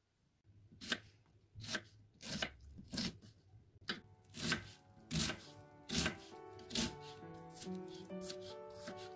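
Knife chopping food on a cutting board in regular strokes, roughly three every two seconds. Soft background music comes in during the second half.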